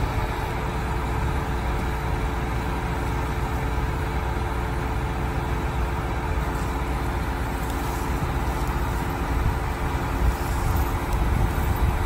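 Large John Deere diesel engines, a combine and a tractor, running steadily at close range as the tractor works to pull the combine out of a washout where it is stuck, a little louder in places near the end.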